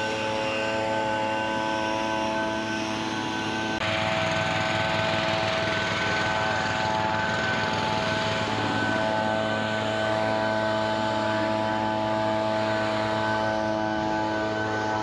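Engine running steadily at constant speed, with a rise in broad noise about four seconds in.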